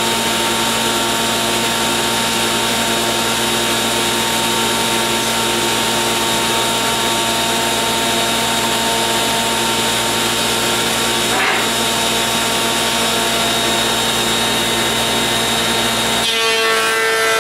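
A stationary woodworking machine and its dust collection running steadily at full speed. About sixteen seconds in, a board is fed through the cutter and the pitch of the running changes.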